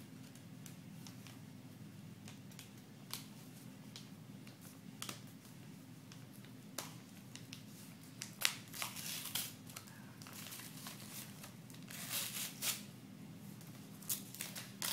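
A yellow paper card envelope being torn open and crinkled by hand: short scattered rips and rustles that grow busier and louder about halfway through, over a faint steady low hum.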